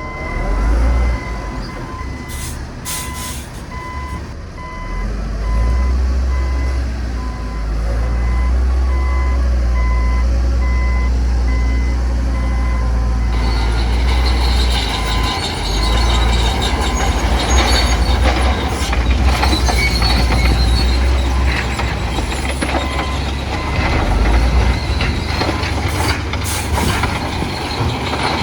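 Diesel heavy machinery running with a reversing alarm beeping at a steady pace. About halfway through the beeping stops and a louder rattling, scraping noise takes over over the engine.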